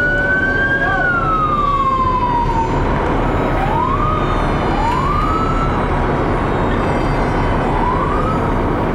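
Emergency vehicle siren: one long wail that rises and then falls away over the first few seconds, then about four short rising whoops, over a steady low rumble.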